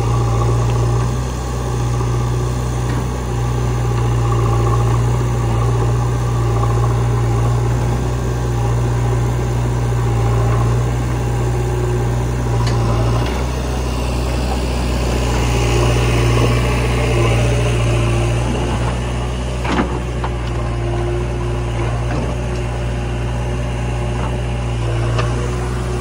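Diesel engines of a JCB 3DX backhoe loader and a Mahindra 475 DI tractor running steadily as the backhoe digs and loads soil, with one sharp knock about twenty seconds in.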